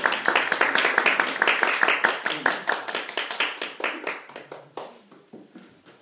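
Applause from a small group of people clapping, thinning out and dying away about five seconds in.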